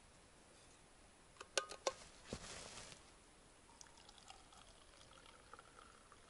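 A few sharp metal clinks from a thermos and its cup about a second and a half in, then liquid poured from the thermos into the cup, a faint trickle whose pitch rises as the cup fills.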